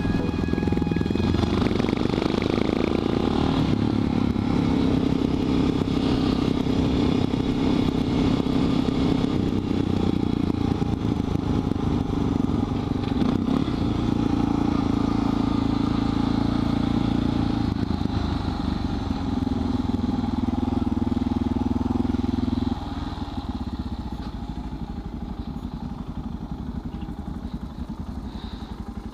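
On-board sound of a Suzuki DR650 supermoto's single-cylinder engine running at road speed, shifting in tone as the bike slows. About 23 seconds in it drops to a quieter idle as the bike comes to a stop.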